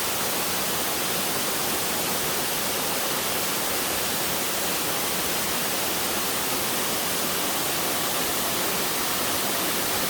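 Small mountain waterfall pouring steadily into a pool: a constant, even rush of falling water.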